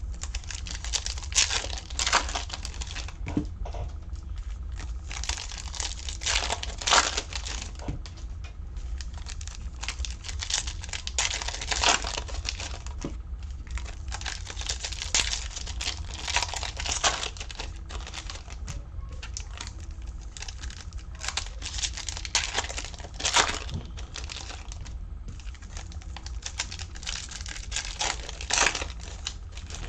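Foil trading card pack wrappers being torn open and crinkled by hand, in a series of rustling bursts every second or two, over a steady low hum.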